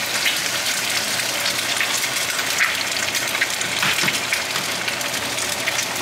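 Eggs frying in hot oil in a frying pan: a steady sizzle full of small crackles and pops.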